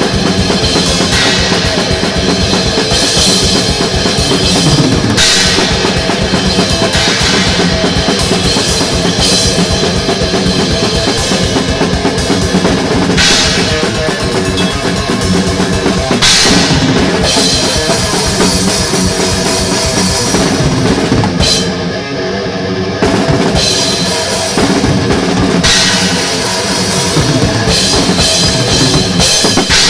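Thrash metal music: a drum kit driving hard, with rapid bass-drum strokes, snare and repeated crash cymbals. About two-thirds of the way through, the cymbals drop out for about a second before the full band comes back in.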